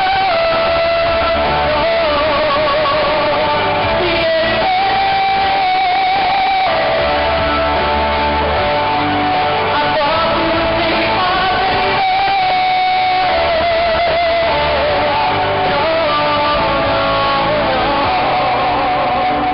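Loud live pop-rock band music through concert PA speakers, harsh and distorted from being recorded close to the speakers: guitar over bass, with a held melody line that wavers in vibrato.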